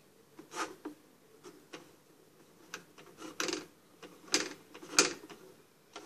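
Irregularly spaced sharp plastic clicks and short clatters from a Pie Face toy game's plastic parts being handled, the loudest a single click about five seconds in.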